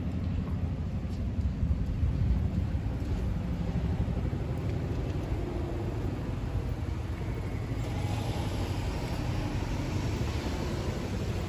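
Outdoor street ambience: a steady low rumble of traffic, with a brighter hiss joining about eight seconds in.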